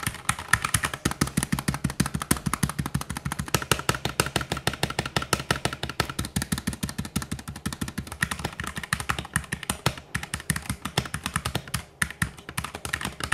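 Rapid typing on a Keychron K8 mechanical keyboard fitted with stock Gateron Brown tactile switches, many key clacks a second. This is the keyboard's sound before the switch swap.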